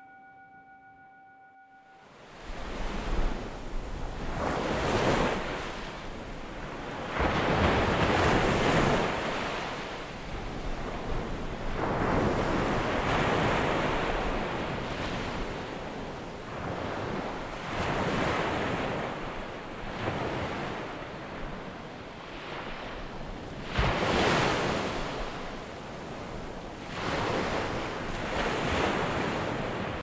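The fading tail of a ringing alarm chime, then, about two seconds in, ocean surf begins: waves washing in and drawing back, swelling every few seconds.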